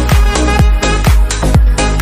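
Background electronic dance music with a steady four-on-the-floor kick drum, about four beats a second.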